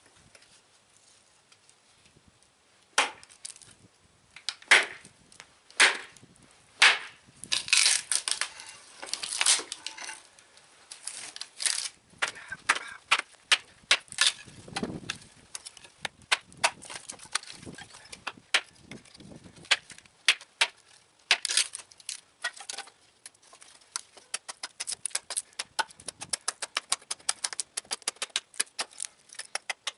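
A carpenter hatchet with an undercut 'Chicken Hawk' bit chopping and splitting a stick of firewood on a wooden chopping block. A series of sharp knocks, the first few about a second apart, then denser chops with the wood cracking apart, a duller thud, and many quick, light taps near the end.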